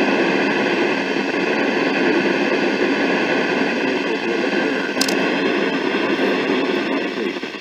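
Weather radio receiver giving out steady loud static hiss as the NOAA Weather Radio signal drops out, with a short tick about five seconds in.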